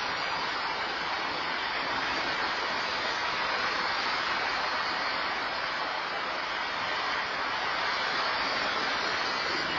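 Steady, even hiss from an outdoor security camera's microphone, with no distinct events.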